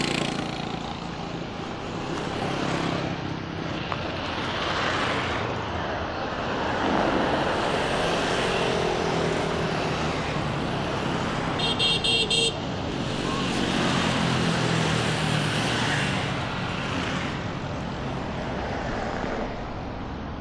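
Road traffic passing in waves of engine and tyre noise, with a vehicle horn tooting a quick run of short beeps about halfway through.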